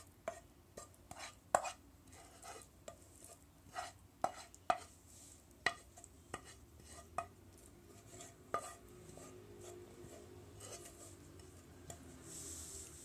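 A utensil knocking and scraping against a non-stick frying pan as cooked apple filling is spooned out of it: a string of sharp, irregular clicks for most of the time, then a brief scrape near the end.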